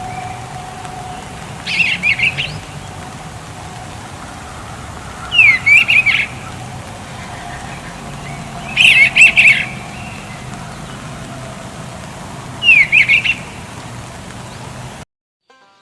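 A bird calling: four short chirping phrases, each under a second, spaced a few seconds apart over a steady background hiss, cutting off abruptly near the end.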